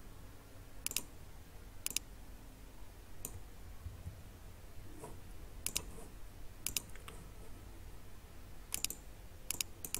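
About eight scattered, irregular clicks from a computer mouse and keyboard, many of them quick double clicks, over a faint low hum.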